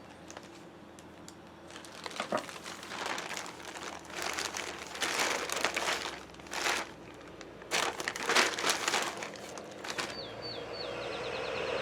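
Package wrapping crinkling and rustling in irregular bursts as a gift is unwrapped by hand. Near the end a steady hum starts, with a quick run of short high chirps.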